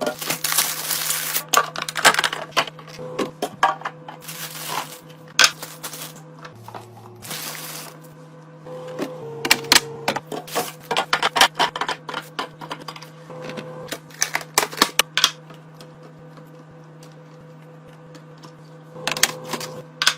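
Plastic containers, lids and packaging being handled during a fridge restock: a run of irregular clicks, clacks and rustles, with a faint steady hum underneath.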